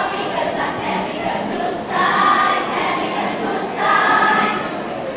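School choir singing together in short phrases, swelling loudest about two seconds in and again near four seconds.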